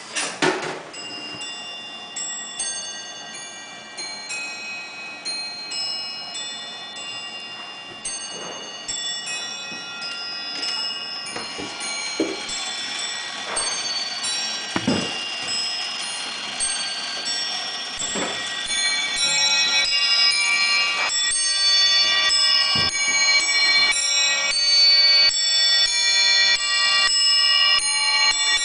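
Ahrens Bellringer coin-operated moving model ringing its small bells: many quick strikes at different pitches in changing sequences, each note ringing on under the next. A sharp clack at the start and a few dull knocks from the mechanism come through, and the ringing grows louder and fuller about two-thirds of the way through.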